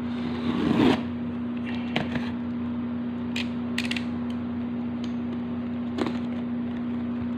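Cardboard shipping packaging being handled and opened: a scraping, rustling burst about a second in, then a few sharp clicks and creaks, over a steady electrical hum.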